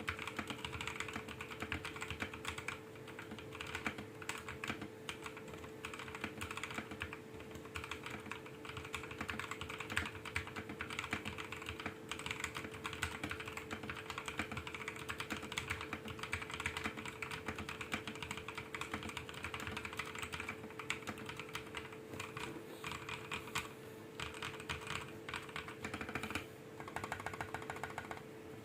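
Fast typing on a mechanical keyboard with lubed NovelKeys x Kailh Cream linear switches, a polycarbonate plate and case, and PBT OEM-profile keycaps: a dense run of keystroke clacks, pausing briefly a few times. A steady hum runs underneath.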